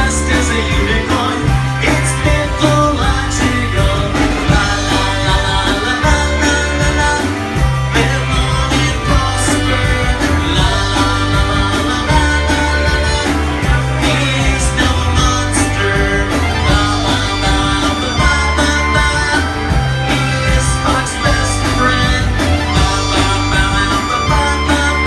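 Live rock band playing with sung vocals: electric guitars and keyboard over a steady drum beat and a repeating bass line.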